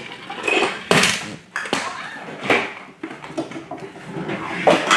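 Toys being handled: a string of irregular clacks and knocks, about half a dozen, with quieter rustling and shuffling between them.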